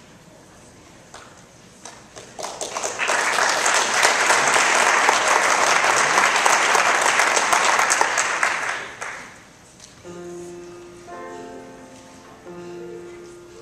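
Audience applause swells, holds for about six seconds and dies away. A few seconds later a grand piano sounds two sustained chords.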